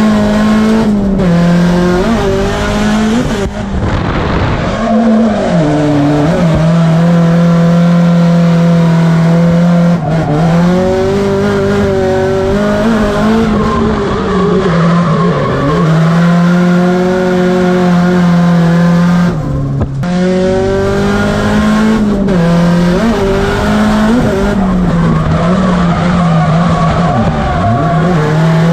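Drift car's engine held at high revs through long slides, with tyres squealing, heard from inside the cabin. Several times the revs drop briefly and climb straight back up.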